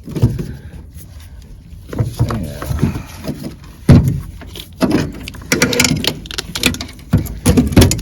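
Irregular knocks, clicks and rattles of parts and wiring being handled and set in place, with one sharp knock about four seconds in.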